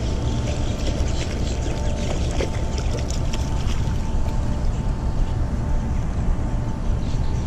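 Clothing rubbing and rustling against a body-mounted camera's microphone: a steady low rumble with many small scattered clicks.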